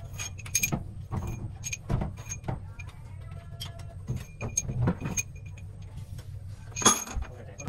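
Irregular metallic clinks and knocks of hand tools working on a diesel engine's cylinder head bolts, some ringing briefly, with a sharp louder clank near the end, over a steady low hum.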